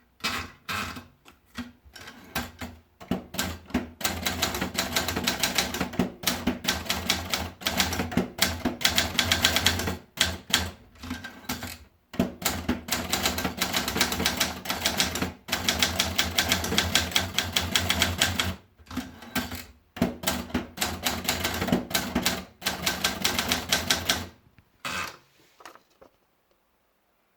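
Triumph Gabriele 25 electronic typewriter being typed on in quick runs of rapid key and print strikes over a steady motor hum, with a few short pauses. The typing stops near the end.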